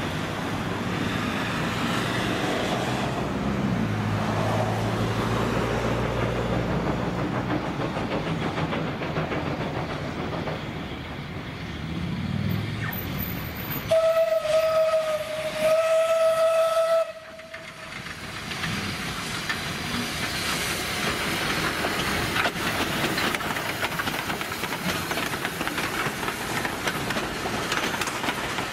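Steam locomotive C22, a 1902 Beyer Peacock 2-6-0 tender engine, running with its carriages. About halfway through it gives two blasts on its steam whistle, each about a second and a half long with a short gap between them, the loudest sound here. The running noise carries on afterwards.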